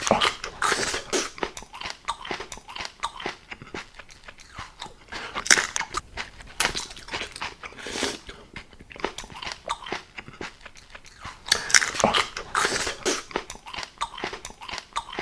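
Close-miked ASMR eating of crayfish: irregular crunching of shell and wet chewing, with several louder crunches spread through.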